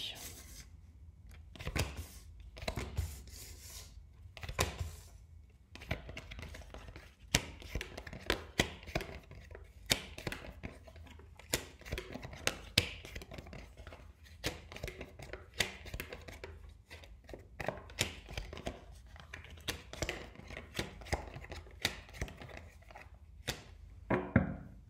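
Cards being dealt one at a time from an oracle deck onto a wooden table: a long run of irregular light taps and slaps as each card is drawn off the deck and set down, over a faint low hum.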